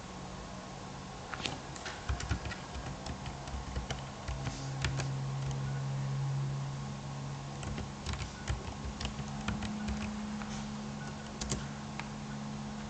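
Typing on a computer keyboard: a run of irregular keystrokes that starts about a second in and stops near the end, over a low steady hum.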